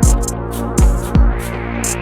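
Electronic background music: a drum-machine beat of deep kicks and hissy high hits over sustained synthesizer chords.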